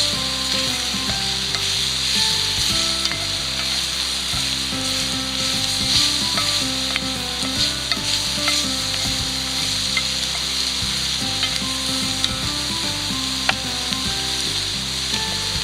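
Food sizzling steadily as it fries in a pan over a wood fire and is stirred, with scattered sharp crackles and clicks. Soft background music plays underneath.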